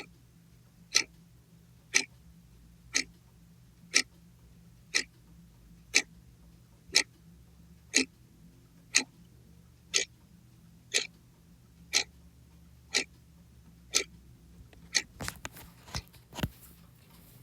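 Clock ticking sound effect: sharp single ticks, one a second. About fifteen seconds in, the even ticking gives way to a short run of quicker, irregular clicks.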